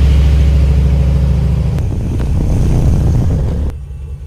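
LS V8 engine in a 1964 Chevy C10 running loud at a high fast idle just after starting, then settling to a lower, quieter idle about three and a half seconds in. The engine now cranks and runs after a new starter wire replaced a bare, arcing one.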